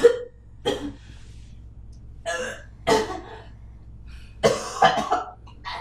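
A woman coughing and retching in several short bouts, being sick after heavy drinking.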